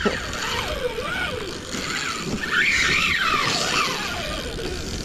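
Wind buffeting the microphone and water sloshing against a kayak hull, with faint wavering cries that rise and fall about halfway through.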